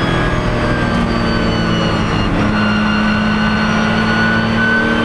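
2008 Porsche 911 GT3 Cup's flat-six race engine running hard, heard from inside the stripped cabin. Its pitch dips slightly at first, then climbs steadily through the second half as the car accelerates.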